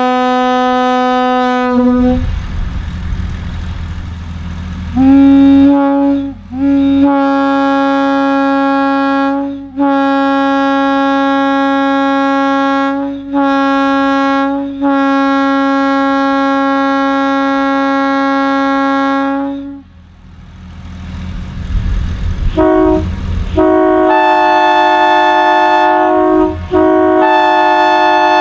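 Locomotive air horns blown in long blasts: one horn sounds a steady chord in several long blasts separated by short breaks, then stops, and after a low rushing noise a second horn with a different, fuller chord sounds in long blasts near the end.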